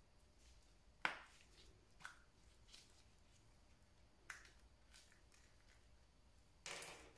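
Yellow plastic Kinder Surprise toy capsule being opened and handled: a sharp plastic click about a second in, then a few lighter clicks and a short rattle near the end as the small plastic toy pieces are taken out.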